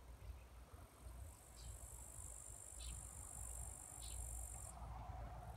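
Insect stridulating: a faint, high, steady trill that grows stronger about a second in and cuts off abruptly near the end. Three brief faint chirps sound over it, with a low rumble underneath.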